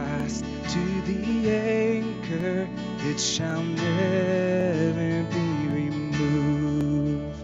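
Worship band playing an instrumental passage of a hymn: strummed acoustic guitar over a steady bass line with held notes from the other instruments.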